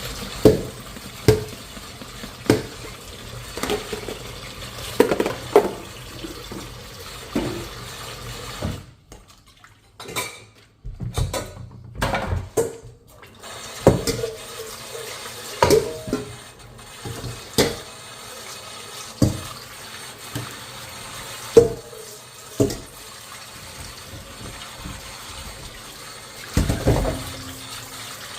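Dishes being washed in a sink under a running tap: water runs steadily while dishes clink and knock together at irregular intervals, about a dozen times. The running water stops for a few seconds about a third of the way in, then comes back.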